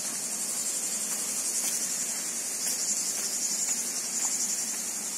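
Insects singing steadily in a high-pitched, finely pulsing buzz.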